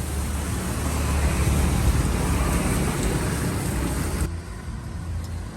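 Road traffic noise, a steady rush of passing motor vehicles that swells and then cuts off abruptly about four seconds in.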